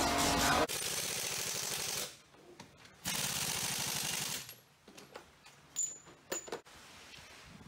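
Pneumatic impact wrench rattling on a race truck's wheel nuts in two bursts of about a second and a half each, followed by a few metallic clinks and knocks.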